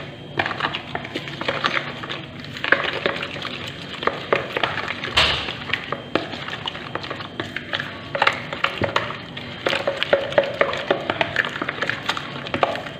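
A hand mixing a thin yeast starter of flour, milk and water in a plastic bowl: wet stirring with many small irregular clicks and taps as fingers knock against the bowl, and one louder knock about five seconds in.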